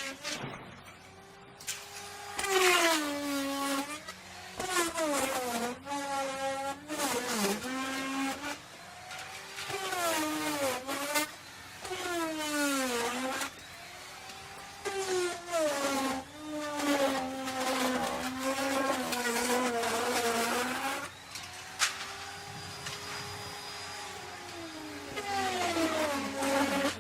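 Electric wood router running, its motor whine dropping in pitch again and again as the bit bites into the wood and rising back between cuts, with the hiss of cutting wood.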